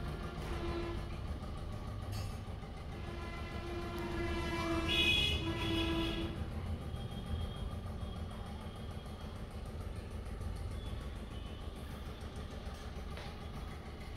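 A horn sounds briefly about half a second in, then again for about three seconds starting three and a half seconds in, over a steady low engine and traffic rumble.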